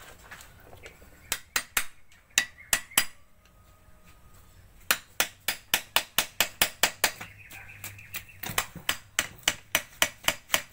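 Light, sharp metallic taps of a screwdriver tip working around the rim of a rubber dust seal to seat it in a transit mixer's planetary gearbox housing. A few scattered taps come first, then a steady run of about three to four a second.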